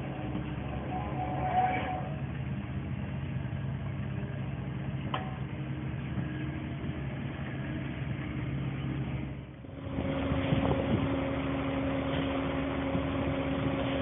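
A compact excavator's engine runs steadily at idle-to-working speed, with one sharp tick about five seconds in. Just under ten seconds in, the sound switches to another heavy diesel engine running steadily with a different pitch: the concrete agitator truck and line pump.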